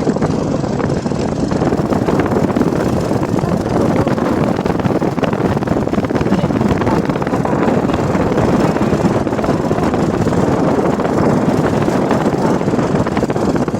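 Car in motion, with strong wind buffeting the microphone: a steady, loud rushing noise.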